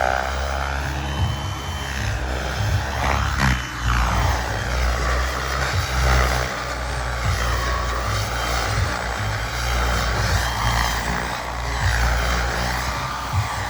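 Turbine-powered RC helicopter (Miniature Aircraft Whiplash T-II with a Turbine Solutions TS45i turbine) in flight. The turbine whine and rotor noise run continuously, sweeping up and down in pitch as it moves about.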